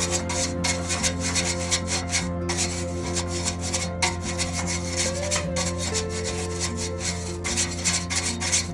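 Brush scrubbing the HVAC blower in rapid, irregular back-and-forth strokes, with steady background music underneath.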